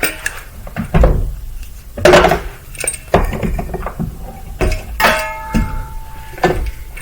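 Scattered knocks and metallic clinks of hand tools and a clamp being handled on a workbench, with one short ringing clink about five seconds in.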